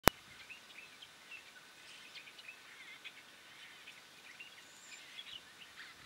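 A sharp click right at the start, then many small birds chirping and twittering throughout, with short, high calls overlapping.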